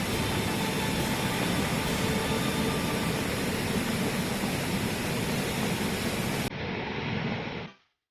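Steady, even rush of a waterfall's falling water. About six and a half seconds in it changes to a duller rush that fades out to silence within a second.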